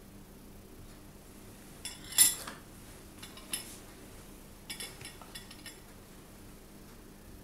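A metal spoon clinking against a ceramic bowl of coffee as biscuits are dipped and pressed down. There is a loud clink about two seconds in, another at about three and a half seconds, then a quick run of lighter clinks around five seconds.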